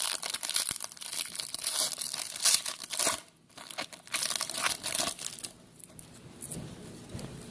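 Wrapper of a 2015 Panini Prizm football card pack crinkling and tearing as it is opened, in irregular crackles. There is a brief pause about three seconds in, and it is quieter over the last two seconds.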